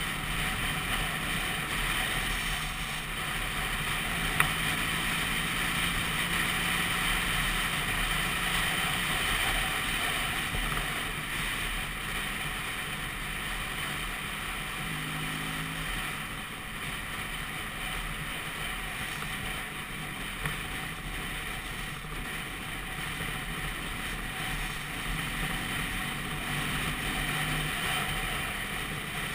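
Vespa PX200 scooter's two-stroke single-cylinder engine running steadily while being ridden along a road, mixed with wind noise on the microphone. Two brief clicks, about 4 and 20 seconds in.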